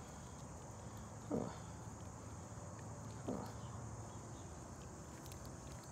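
Steady high-pitched drone of insects in the grass. About one and a half and three and a half seconds in come two short, soft voice-like sounds that fall in pitch.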